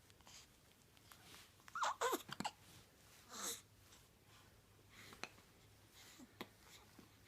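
A dog's hiccups: a short squeak falling in pitch about two seconds in and another about a second and a half later, then a couple of faint clicks.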